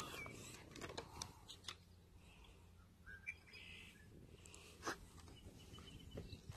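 Faint, short bird chirps over quiet open-air ambience, with a few soft clicks, the clearest about five seconds in.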